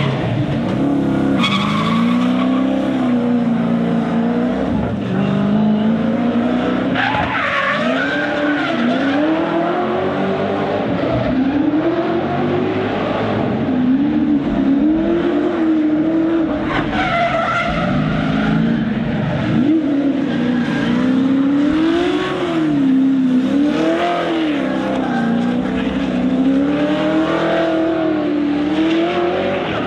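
V8 engine of a VZ Commodore drift car revving up and down again and again under throttle while the tyres skid and squeal.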